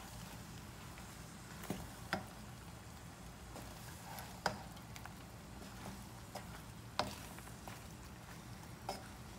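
A utensil stirring chunks of eggplant in a frying pan, with about five sharp knocks against the pan, over a faint steady sizzle.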